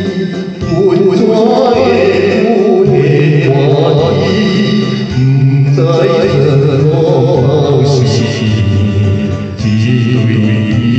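Music: an old Taiwanese Hokkien song with a wavering melody line over held bass notes that change every second or two.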